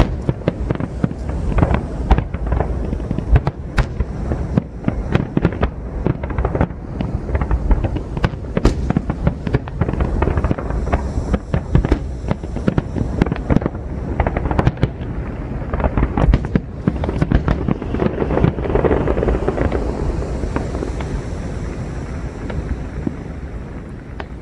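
Aerial fireworks going off in a dense barrage: rapid overlapping booming bursts and sharp cracks, thinning out near the end.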